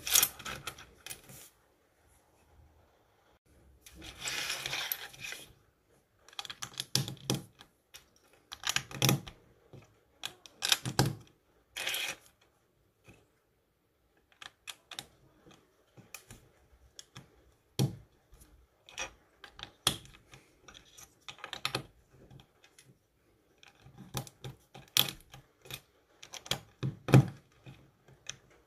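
Plastic LEGO bricks and plates handled on a tabletop: irregular clicks and taps as pieces are picked up, set down and pressed together, with a few short bouts of rattling as loose pieces are moved about, and quiet gaps between.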